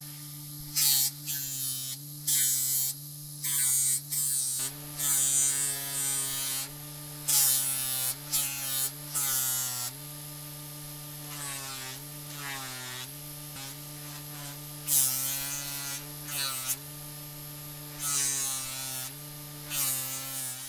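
Bench grinder with a sewn cloth buffing wheel running with a steady motor hum, while steel pliers are pressed against the spinning buff to polish them, giving repeated short bursts of hissing. The hum sags briefly in pitch several times.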